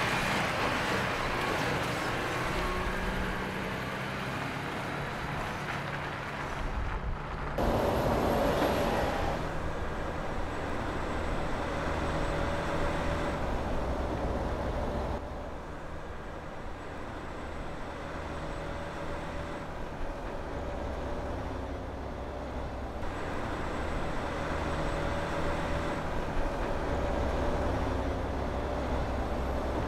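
Volvo FMX tipper truck's diesel engine running as the truck drives over rough ground and gravel, in several cut-together takes; the sound changes abruptly three times at the cuts.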